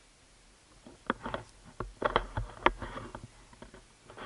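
Golf clubs in a cart bag knocking and clinking together, a quick run of sharp metallic clicks about a second in and again around two seconds in, as a club is drawn from the bag.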